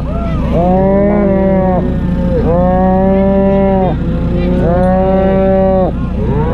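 A calf held down on the ground bawling: three long, even bawls of about a second and a half each, with a fourth starting near the end.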